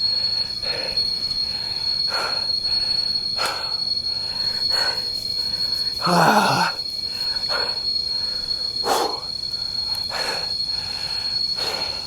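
Insects keep up a constant high ringing at one steady pitch. Over it comes a person's heavy breathing from hiking, an exhale about every second and a half, one of them louder about six seconds in.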